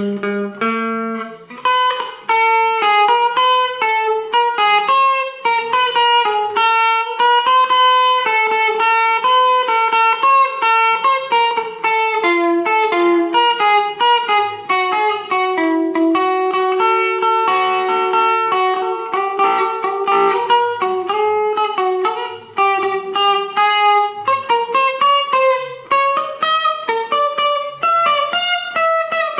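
Stratocaster-style electric guitar played solo: a fast, unbroken stream of single picked notes, with a few longer held notes along the way.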